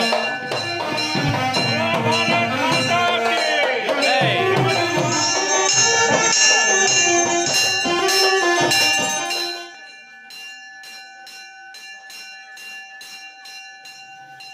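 Indian traditional music with melodic instruments and drums, which stops about ten seconds in. A hand bell then rings quickly and steadily, about three strokes a second, as rung during an aarti.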